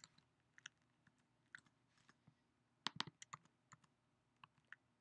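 Faint, scattered keystrokes on a computer keyboard, with a quick run of several keys about three seconds in.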